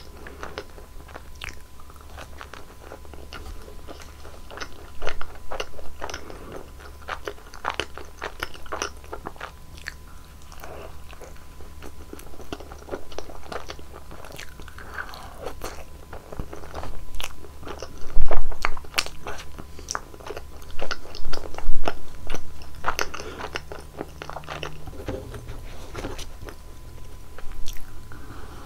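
Close-miked biting and chewing of Nutella-filled crepe rolls: crisp crunches and sticky mouth sounds, with a few louder bites near the middle.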